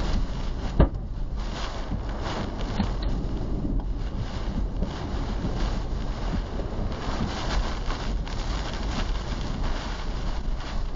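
Tornado winds and driving rain battering a vehicle, heard from inside through the dashcam: a steady heavy rush of wind buffeting the microphone, with scattered knocks and a single sharp, loud hit about a second in.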